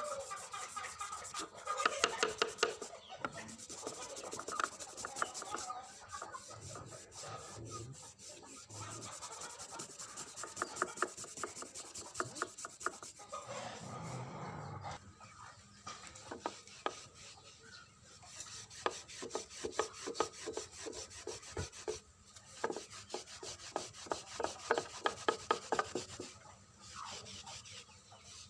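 Quick, repeated rubbing and scraping strokes of a hand tool working a hard surface, in runs broken by short pauses.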